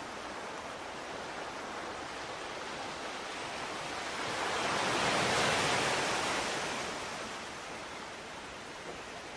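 Steady rushing noise with no distinct events. It swells and fades back over about two seconds in the middle.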